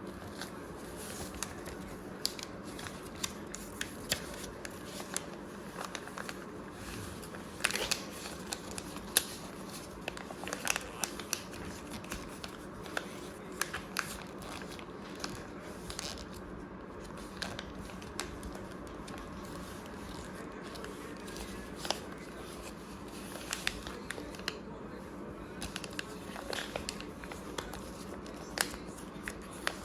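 A sheet of paper being folded and creased by hand: irregular crinkles and sharp crackles, over a steady low hum.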